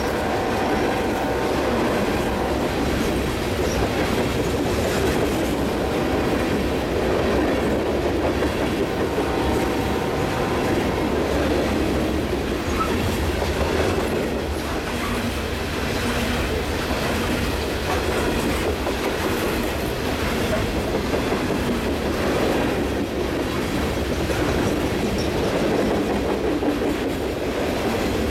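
A loaded coal train's steel hopper cars rolling past: a steady rumble and clatter of wheels on the rails that keeps on without a break.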